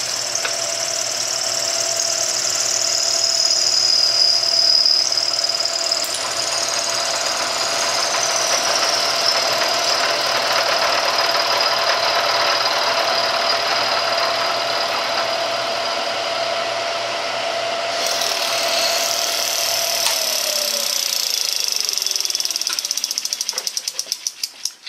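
Bridgeport milling machine cutting a full-depth, full-width slot in aluminum with a 0.625-inch end mill at about 700 RPM, the heaviest first pass. It makes a steady cutting noise with a held tone and a high whine. About 20 seconds in the tone sinks, and near the end the sound dies away with slowing ticks as the cut ends and the spindle runs down.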